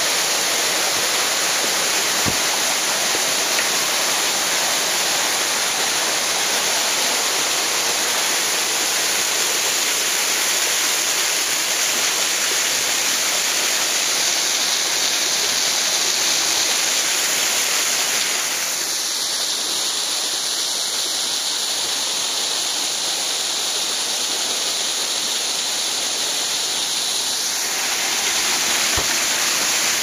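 Waterfall pouring onto rocks: a steady rush of falling water. It softens a little for several seconds past halfway and comes back to full strength near the end.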